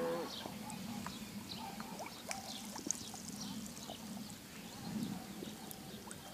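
Reedy-pond ambience: small birds chirping over and over in short, high, falling notes, with soft low calls from water animals and a few sharp clicks. A cow's moo ends just at the start.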